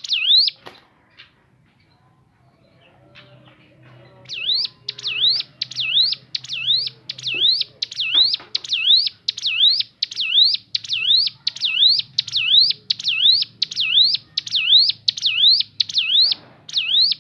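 Ciblek gunung, a prinia, singing a fast, evenly repeated series of rising whistled notes, about two a second. It breaks off about a second in and starts again about four seconds in.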